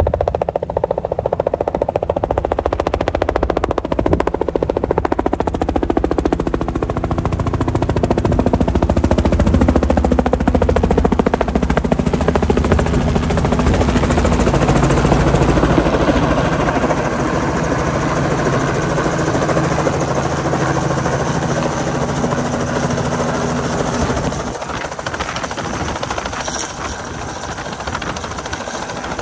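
Light two-bladed helicopter flying low, its main rotor making a fast, steady chop over the engine. It is loudest as it passes close, a little before the middle, and somewhat softer near the end as it hovers low to set down its slung load.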